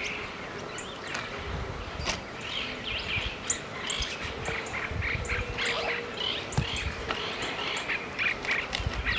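A flock of small birds chirping and calling in quick, overlapping notes, with irregular low rumbles underneath.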